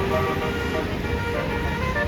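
A bus's Basuri multi-tone 'telolet' air horn playing a quick tune of short notes that step up and down in pitch, over low traffic noise.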